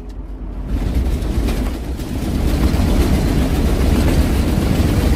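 Motorhome driving on the highway, heard from inside the cabin: a loud, steady rumble of engine and road noise that grows louder about two seconds in.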